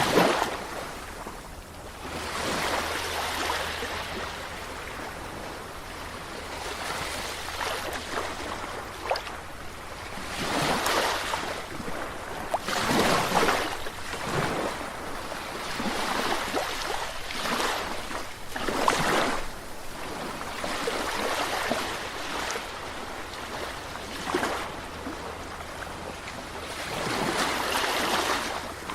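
Sea waves breaking and washing ashore, the surf hiss swelling and fading in irregular surges every few seconds, over a faint low rumble.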